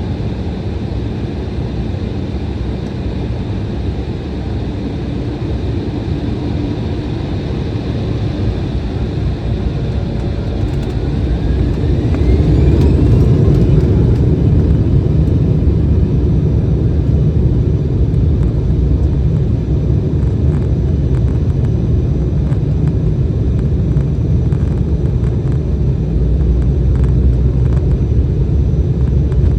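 Cabin of an Embraer E175 jet: a steady low rumble, with a rising whine about ten seconds in as the GE CF34 turbofans spool up, typical of thrust being set for takeoff. The rumble then grows louder and stays loud, with light rattles later on.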